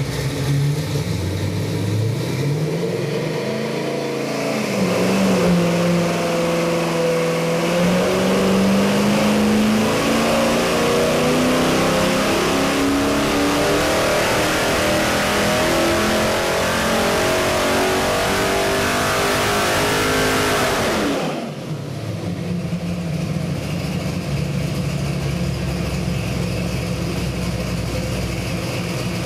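A 450-horsepower 383 Chevy stroker small-block V8 running on an engine dyno. It starts at idle, then goes into a sweep pull under load, its revs climbing steadily for about fifteen seconds. About three-quarters of the way through it drops abruptly back to idle.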